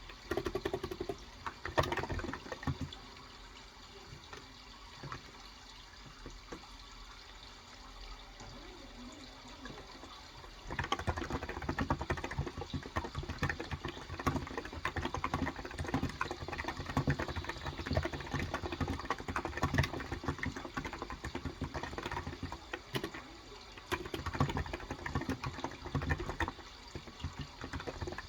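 Typing on a Cox Endeavour electrostatic capacitive (Topre-style) 35 g tenkeyless keyboard: a short flurry of keystrokes near the start, then nearly steady typing from about a third of the way in. Running water sounds steadily underneath.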